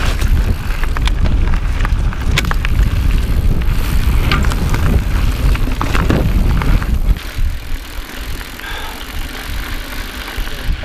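Intense Carbine 29er mountain bike rolling fast over rocky singletrack: tyre crunch and sharp rattling clacks from the bike over rocks, under a heavy wind rumble on the microphone. About seven seconds in it turns much quieter.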